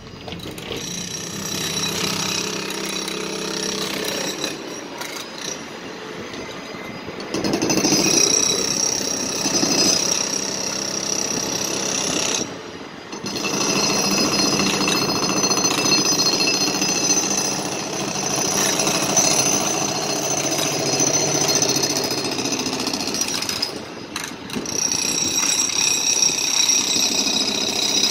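Jackhammering on pavement: fast, continuous hammering with a steady high whine over it. It is quieter at first, gets louder several seconds in, and breaks off briefly twice.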